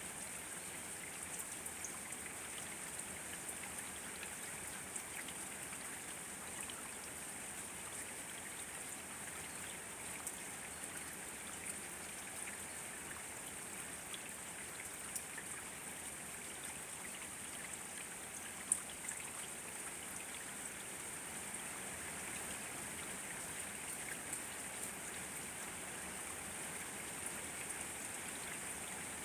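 Steady rain falling, with the patter of scattered individual drops and one sharper drip about two-thirds of the way through.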